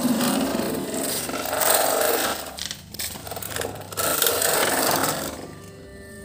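Rough scraping and rubbing noise in uneven strokes, which stops about five seconds in. Faint steady music tones follow.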